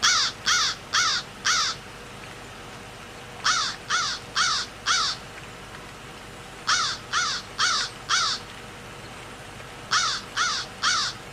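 Crow cawing in sets of four quick calls, each call rising then falling in pitch. The sets repeat about every three seconds over a steady faint hiss.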